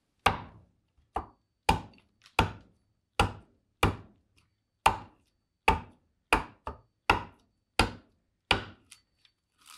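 Bowl adze chopping into green black walnut while hollowing a bowl: about a dozen sharp strikes at an uneven pace, roughly one every two-thirds of a second, each dying away quickly.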